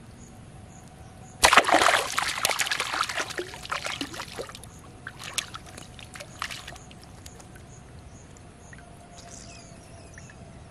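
Hooked fish splashing at the pond surface as it is hauled in on a fishing line: a sudden burst of splashing about a second and a half in that dies away over a few seconds, then a few smaller splashes.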